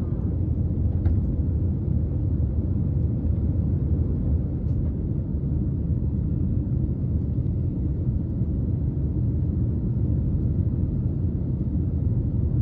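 Steady low rumble of an Airbus A320's engines and rushing air, heard inside the cabin over the wing as the jet climbs after takeoff.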